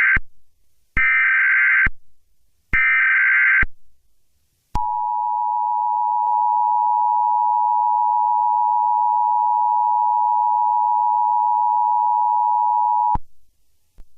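Emergency Alert System broadcast tones: three short digital SAME header bursts about a second apart, then the steady two-tone EAS attention signal (853 and 960 Hz) held for about eight seconds before cutting off abruptly.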